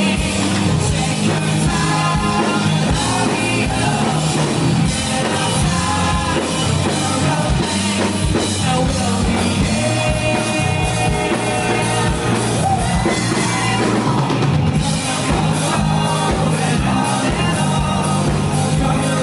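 Rock band playing live with drums, bass and guitars, and a male vocalist singing over them, heard through the room.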